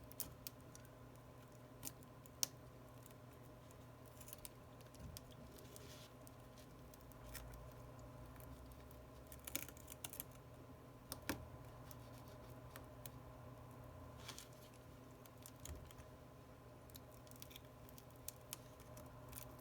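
Faint, scattered clicks and small scrapes of a hand tool prying and picking at the broken screen and glass of an iPhone 11 Pro, a few of them sharper, over a faint steady hum.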